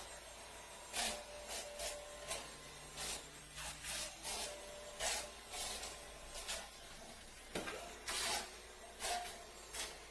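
Toy RC kayak paddling through water: a string of short splashy strokes, roughly one to two a second and unevenly spaced, with a faint motor whine under some of them.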